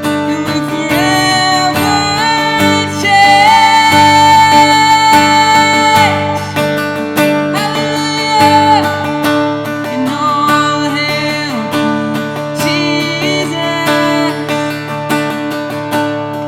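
A voice singing a worship song to a strummed acoustic guitar, with long held sung notes, the longest about three seconds in.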